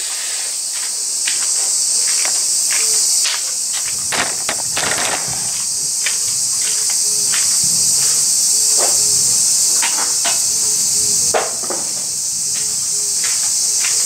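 Steady high-pitched insect chorus, louder in the first few seconds and again near the end, with scattered light clicks and knocks.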